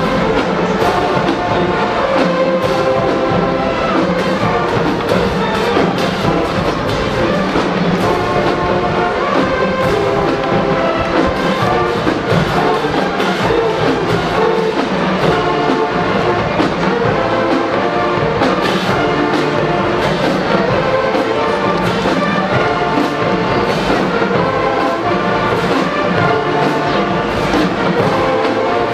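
Marching band playing: a loud brass section carries a dense tune over steady drum beats.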